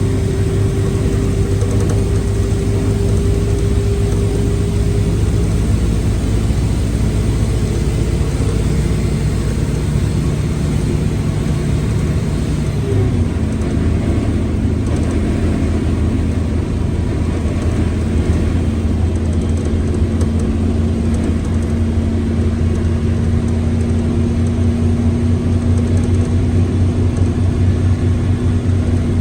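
Mercedes-Benz OF 1721 L bus's diesel engine running steadily, with a steady whine over it from a noisy, growling gearbox. About 13 seconds in, the pitch drops suddenly, then holds steady.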